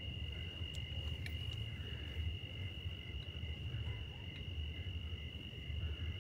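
Crickets trilling in one steady, unbroken high tone, over a low rumble and a few faint clicks.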